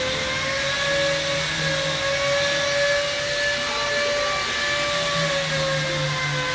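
A motor running steadily: a constant whine over a loud hiss, holding one pitch with only slight drift.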